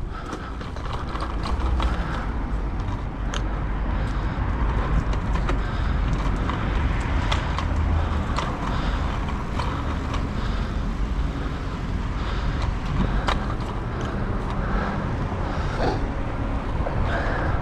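Road and traffic noise heard from a moving bicycle, with steady rumble from wind on the microphone and scattered clicks and rattles.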